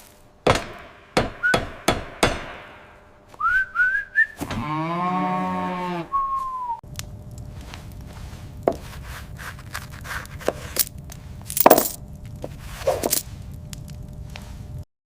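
Cartoon sound effects: a run of quick taps and knocks, then three short rising whistles and a held pitched tone that bends up and down. After that a low steady rumble runs under scattered clicks and a few sharper hits, and the sound cuts off suddenly near the end.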